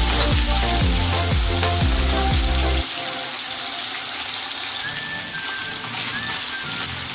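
Fish frying in hot oil: a steady sizzle. Background music plays over it, its heavy bass beat dropping out about three seconds in.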